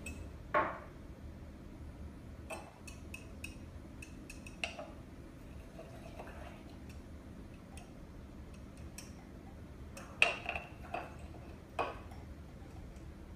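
Kitchen utensil clinking and tapping against a container while yogurt is stirred into cooled milk: scattered light taps, with a louder clink about half a second in and a few more near the end.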